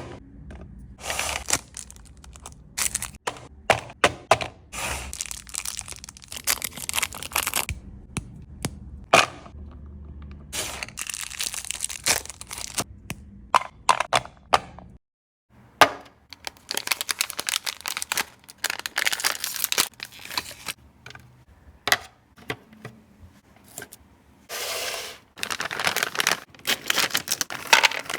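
Chocolate sweets being handled close to the microphone: many sharp snaps and taps, with bursts of wrapper crinkling and tearing. The sound cuts out for about a second halfway through, then the snapping and crinkling resume.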